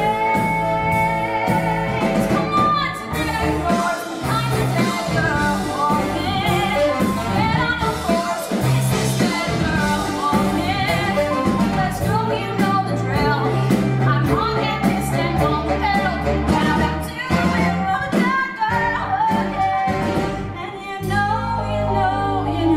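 A woman singing a musical-theatre song over band accompaniment with steady bass notes underneath.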